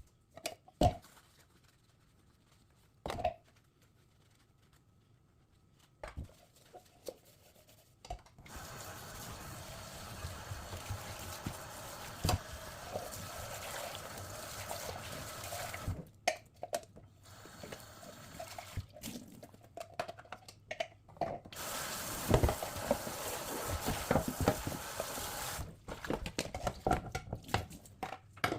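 Dishwashing at a sink: a few knocks of dishes, then the tap running steadily into the sink twice, with dishes and cutlery clinking and knocking in between and under the water.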